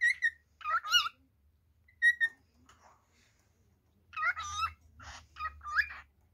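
Cockatiel singing: short clear whistles and twisting, warbled notes, with a quiet gap in the middle and then a busier run of warbling and chattering notes after about four seconds.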